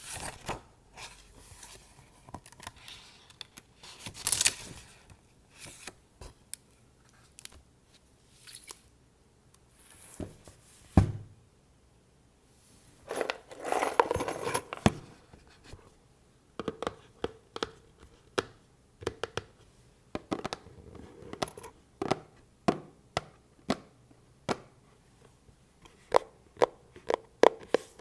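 Close-miked ASMR handling of a book: scattered scratches and paper rustles, with a longer rustling stretch about halfway through. After that, fingers tap on a box, about two crisp taps a second.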